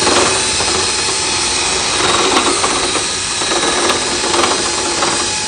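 Paint spray gun spraying black paint, a loud steady hiss of air and atomised paint.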